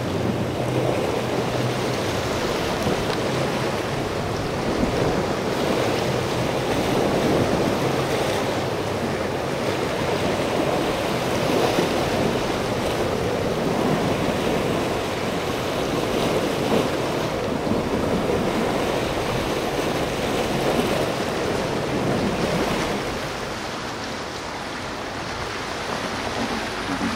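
Wind buffeting the microphone over choppy sea, with the faint low hum of a motor cruiser's outboard engines running past. The sound drops somewhat about 23 seconds in.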